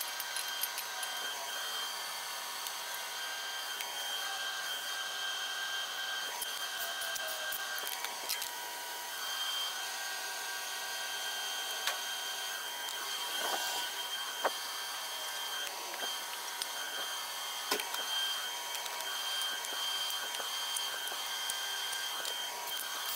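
Steady, high-pitched whine of shop machinery, with a few sharp metallic clicks in the second half as the main-cap bolts of an aluminum LS3 engine block are torqued with a torque wrench.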